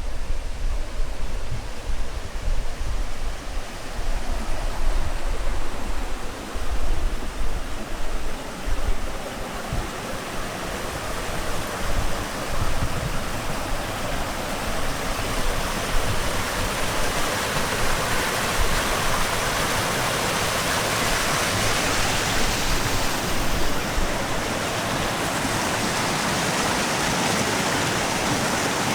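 Rushing water of a spring-fed stream, growing louder and steadier over the second half into an even splashing rush. Low gusts of wind on the microphone come and go during the first third.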